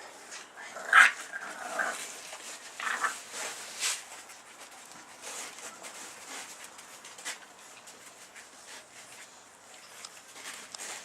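A dog snoring in its sleep: short noisy breaths, the loudest about a second in with a squeaky, whimper-like edge, then fainter breaths.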